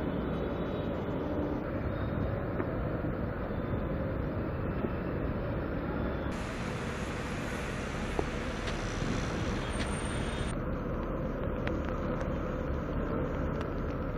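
Steady road traffic noise of passing vehicles, with no one speaking. About six seconds in the background hiss turns brighter, and about four seconds later it drops back.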